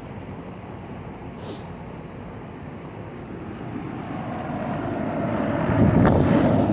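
Steady hum of running air-conditioner condenser units, with the engine noise of something passing by swelling from about halfway through and peaking near the end.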